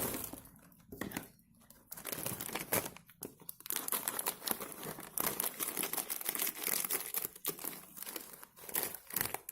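A plastic chiki snack packet being torn open and handled, with dense, irregular crinkling and crackling of the wrapper and a brief lull about a second in.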